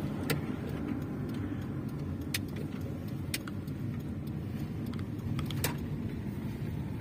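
Car driving at low speed, heard from inside the cabin: a steady low rumble of engine and tyres, with a few sharp clicks or rattles spread through it.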